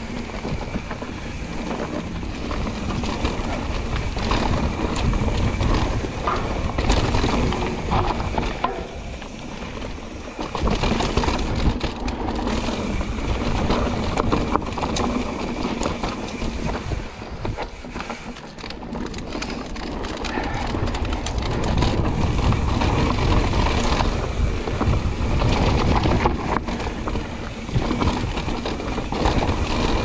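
Santa Cruz Hightower LT mountain bike running fast down a dirt singletrack: tyres rolling and skidding over dirt and roots, with the chain and bike clattering over the bumps and wind rumbling on the camera microphone. The rolling noise swells and dips with the terrain.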